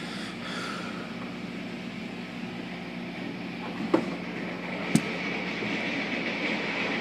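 Automatic car wash heard from inside the car: spinning brushes and water spray working over the car body, with a steady machinery hum that grows louder in the second half as the brushes come closer. Two sharp knocks about four and five seconds in.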